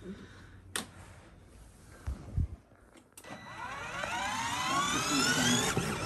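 A 12V Tobbi kids' ride-on truck gives a rising whine about three seconds in that climbs steadily in pitch for a couple of seconds and then fades. A sharp click comes under a second in.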